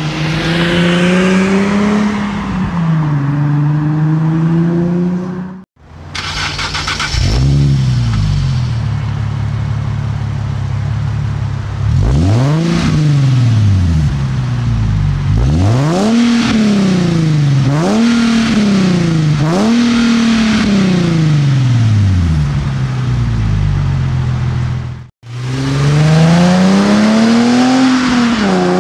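Infiniti G37's VQ37 V6 through a Manzo axle-back muffler. It accelerates and settles, then is blipped in several quick free revs in a row, each rising sharply and falling back. Near the end a long rise and fall comes as the car drives past. The sound cuts off abruptly twice between clips.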